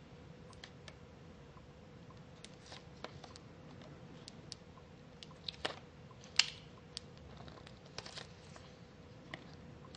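Crazy Aaron's Thinking Putty being squeezed and kneaded by hand: faint, scattered small sticky clicks and pops, the loudest a little past halfway, over a faint steady hum.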